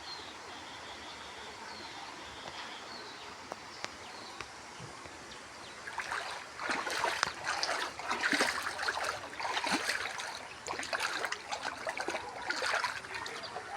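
Floodwater splashing and trickling. It is a low, steady wash at first, then louder and choppier from about halfway through.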